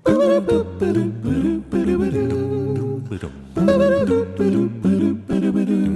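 Opening music: a hummed or sung melody of short notes over a steady held bass line.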